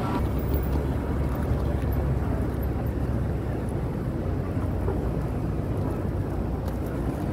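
Steady city street traffic noise, a continuous low rumble with no distinct events standing out.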